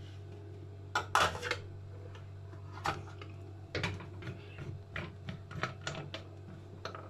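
Stainless-steel pressure cooker lid being set on the pot and locked by turning its knob: scattered metal clinks, clacks and scrapes, a cluster about a second in and more in the second half, over a low steady hum.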